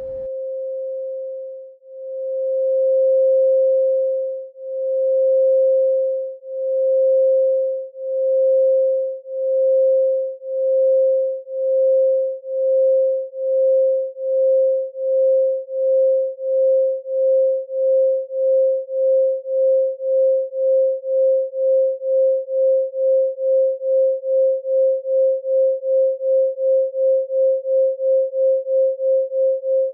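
A single pure electronic tone, mid-pitched and unchanging in pitch, pulsing in loudness. The pulses speed up steadily, from about one every two seconds to about two a second by the end.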